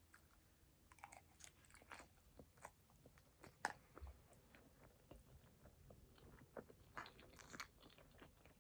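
Faint close-up eating sounds of a person chewing a mouthful of poke, with scattered small clicks and smacks spread unevenly through the chewing.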